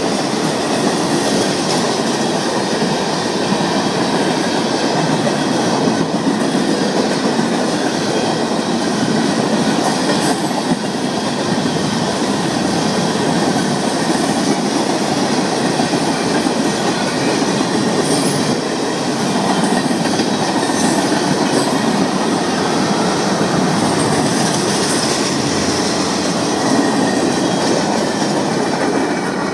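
Florida East Coast Railway mixed freight train's cars (autoracks, boxcars and tank cars) rolling past close by: a steady clatter of steel wheels over the rail joints, with brief high wheel squeals now and then.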